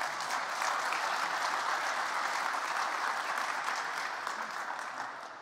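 Audience applauding: many people clapping at once, dying away near the end.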